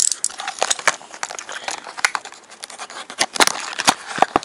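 A small cardboard blind box and the plastic bag inside it being handled: scattered crinkles, crackles and small clicks, irregular and brief.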